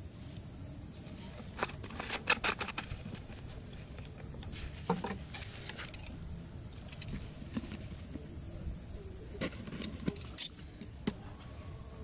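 Close-up handling noises: scattered clicks, rustles and soft taps as hands work a rubber-band cord, scissors and a cardboard disc at a hole in dry soil. There is a quick run of clicks about two seconds in and one sharp click near the end.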